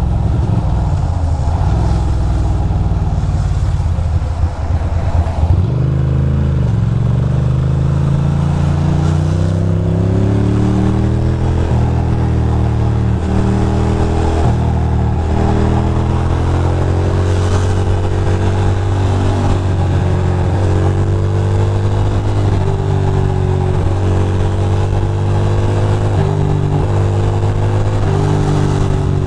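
Motorcycle engine accelerating through the gears: its pitch climbs, drops back at each upshift every second or two, and climbs again, after a rougher, lower-pitched first five seconds.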